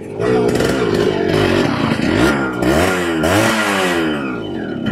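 Motorcycle engine revved repeatedly as it pulls up, loud, its pitch rising and falling several times.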